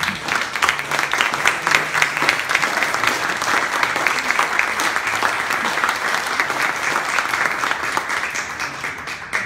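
Audience applauding: a long, dense round of clapping that eases slightly near the end.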